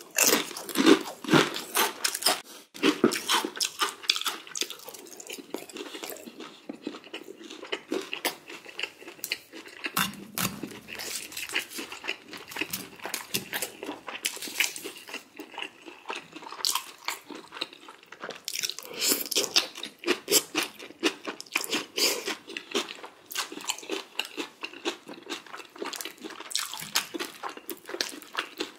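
Crunchy food being chewed close to the microphone: dense, irregular crunches and bites.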